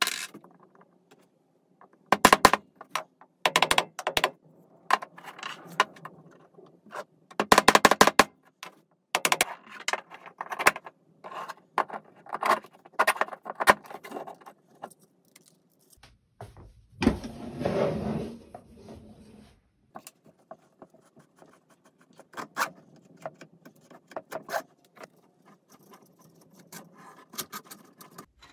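Hard 3D-printed plastic wheel parts clicking and clattering as they are handled and fitted together, in bursts of knocks. A longer scraping rub comes about seventeen seconds in.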